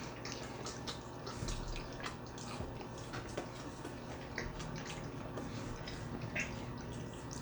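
Chewing and mouth sounds of people eating sauced chicken legs: soft, irregular little clicks and smacks, over a steady low hum.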